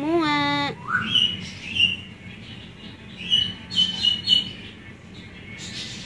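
Hill myna calling softly while being stroked. It opens with a short nasal, wavering note, then gives a rising whistle and a string of short high whistled chirps.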